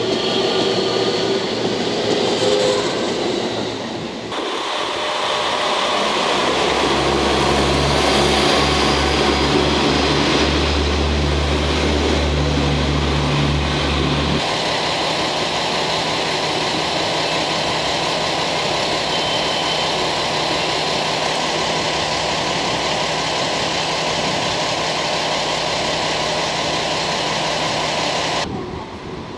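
Diesel engines of a JR KiHa 40 series diesel railcar train running as the train moves past close by, with wheel and rail noise. The deep engine note is strongest partway through, then settles to a steadier hum.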